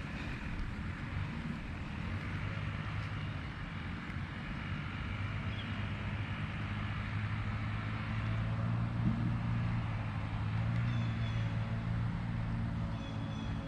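A motor running steadily at a distance, a low even hum that swells somewhat louder partway through.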